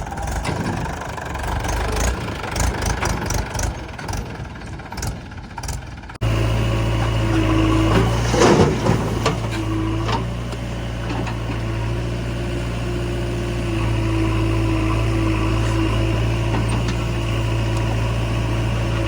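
Diesel engines of a backhoe loader and tractor running steadily, with a higher whine that cuts in and out. The first few seconds are a rougher clatter that changes abruptly to the steady running, and a short rough scraping burst comes a couple of seconds after the change.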